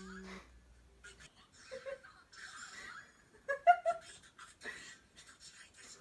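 A person laughing: breathy, airy exhales, then short high giggles from about three and a half seconds in. A low hum cuts off about a second in.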